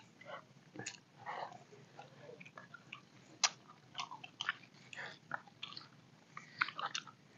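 People eating noodles: close chewing and spoons clicking and scraping on plastic plates, as many short, scattered sounds.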